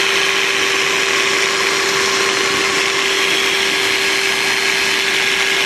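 Power buffer running steadily, polishing compound over a plastic headlight lens to take out fine sanding scratches. It makes a steady hum over a constant hiss.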